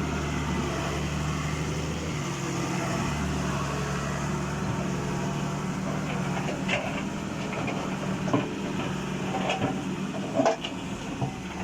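Excavator's diesel engine running steadily, with scattered knocks from about halfway on, the loudest a little before the end.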